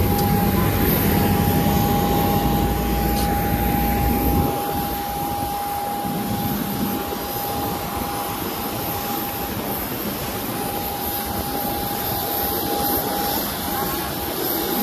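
Jet airliner noise on an airport apron: a steady whine over a rushing hiss from a Boeing 737. A heavier low rumble in the first few seconds drops away, leaving the whine and hiss.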